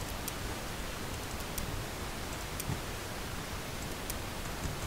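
Steady recording hiss with a few faint, sharp clicks from computer keyboard and mouse use.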